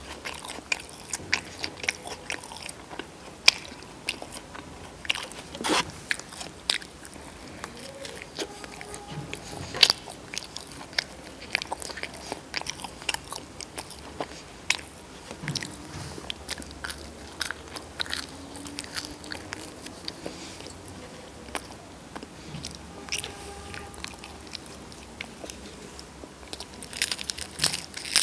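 Close-miked eating: crunchy bites and chewing, an irregular run of sharp crunches with a few louder ones.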